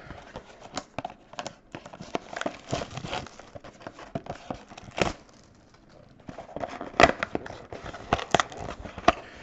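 Plastic shrink wrap crinkling and tearing as a cardboard trading-card box is unwrapped and opened by hand, with scattered sharp clicks and taps of the cardboard.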